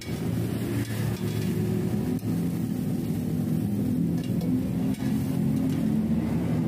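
A steady, low engine-like rumble with a shifting pitch runs throughout. A few short sharp clicks of a metal spatula on a steel griddle sound about one, two and five seconds in.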